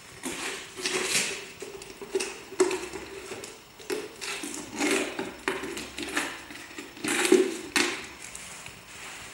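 A malamute puppy working at an empty plastic Jif peanut butter jar: the jar knocks and crackles irregularly against concrete and under its paws and mouth as it licks inside.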